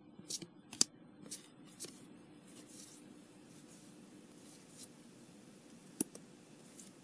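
Trading cards in plastic sleeves handled and flipped through one at a time: soft sliding and rustling, with short sharp clicks about every half second in the first two seconds and another one about six seconds in.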